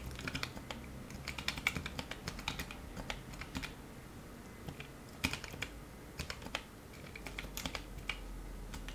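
Keystrokes on a Ferris Sweep split keyboard with Kailh Choc Brown low-profile switches in a 3D-printed case: slow, uneven typing in short runs of clicks broken by hesitant pauses, typical of someone typing on an unfamiliar layout with no practice.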